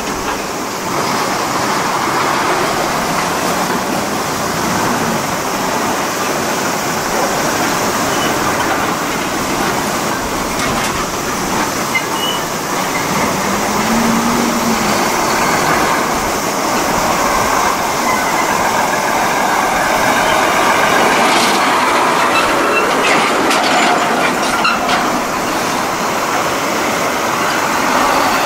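Heavy diesel semi-tractors hauling container trailers driving past close by: steady, loud engine and tyre noise, with a brief rise and fall in engine pitch about halfway through.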